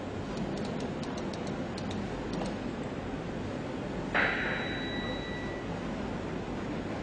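Steady hum of machinery and ventilation in a repair workshop, with a run of light clicks in the first couple of seconds. About four seconds in comes a sharp knock that rings on briefly with a clear metallic tone.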